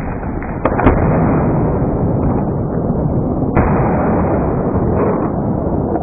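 Thunderclap from a close lightning strike: a sharp crack just under a second in, then loud continuous rumbling, with another sudden surge about three and a half seconds in.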